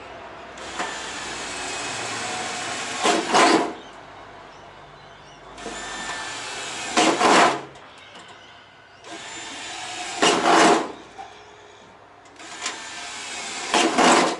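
Power drill drilling four holes in turn, each run lasting a few seconds and getting louder just before it stops. The holes mark out the circle for a diesel heater vent cut-out.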